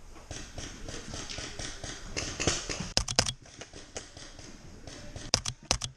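Paintball markers firing: a steady patter of faint pops, then a quick string of sharp shots about three seconds in and another rapid string near the end.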